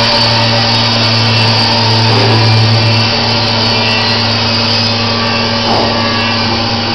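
Sawmill machinery running with a steady low hum and mechanical noise, easing slightly about three seconds in.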